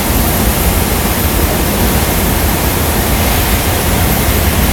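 Steady rushing roar of a glassworks floor: gas-fired glory holes and melting furnaces burning, with fans running.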